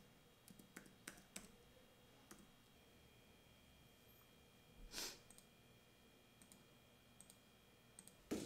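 Faint computer mouse clicks, a few scattered at irregular intervals, with a brief soft hiss about five seconds in, against near silence.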